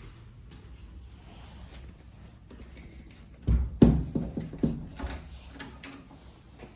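A quick run of knocks and clunks, starting abruptly about three and a half seconds in and lasting under two seconds, over low steady background noise.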